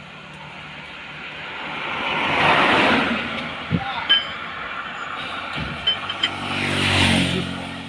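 Two road vehicles pass close by, each swelling and fading; the second, about seven seconds in, carries a low engine hum. In between come a few sharp metallic clicks of a wrench on the truck's propshaft bolts.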